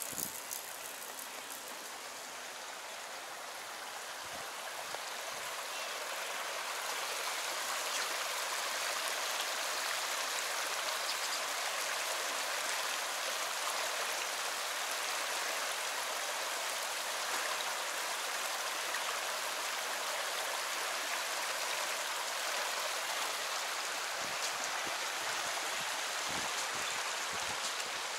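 Flowing stream water, a steady rushing that grows louder over the first several seconds and then holds even.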